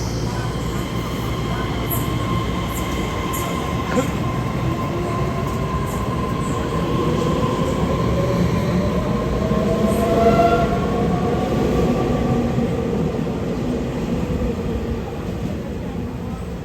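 Taiwan Railway EMU3000 electric train pulling out through an underground station, its traction motors giving a whine that rises in pitch as it gathers speed, over the rumble of the running gear and a few sharp wheel clicks early on.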